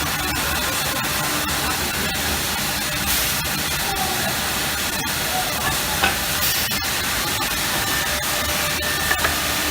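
Four-head CNC wood router running: a steady hissing noise from the spindles and dust extraction, with a low hum and scattered faint clicks.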